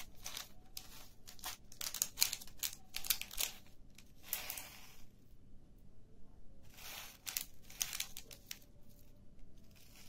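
Thin plastic bag of sugar pearl sprinkles crinkling as it is handled and opened: a quick series of short rustles, a longer one about four seconds in, and a few more near the end.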